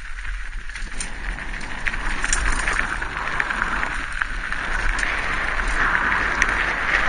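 Mountain bike riding fast down a gravel dirt track: wind rushing over the microphone with tyres crunching on loose stones, and scattered clicks and rattles from the bike. The rush grows louder toward the end.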